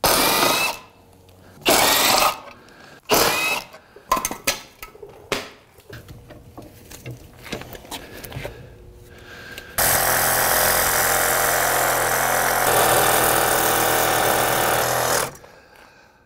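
Impact wrench hammering in several short bursts on a rear hub's spindle nut, then in one steady run of about five seconds near the end as a rusted suspension bolt, soaked in penetrating oil, breaks free.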